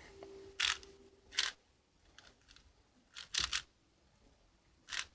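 Plastic Rubik's cube layers being turned by hand: a handful of sharp clicks and snaps, three in quick succession about three and a half seconds in.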